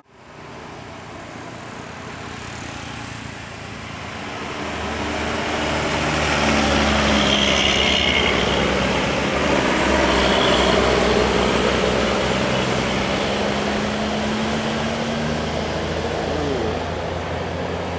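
A large bus driving past on the road: engine hum and tyre noise swell over the first six seconds, stay loud, then ease off slowly.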